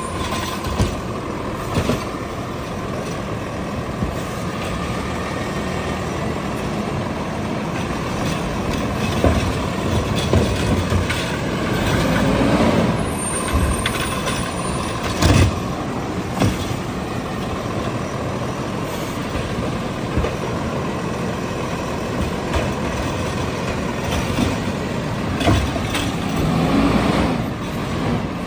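Peterbilt 520 garbage truck with a McNeilus Autoreach automated side-loader: the diesel runs steadily and revs up twice as the hydraulic arm lifts, dumps and sets down wheeled carts. Sharp knocks come from the carts and their flipping lids striking metal.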